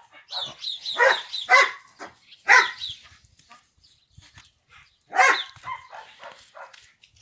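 A dog barking in short sharp barks, several in the first three seconds and another about five seconds in.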